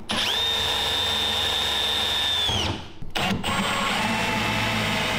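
Milwaukee M18 cordless drill with a countersink bit drilling through aluminium diamond plate into the wooden transom. It makes one steady whining run that winds down after about two and a half seconds, then a short pause and a click, and then a second steady run.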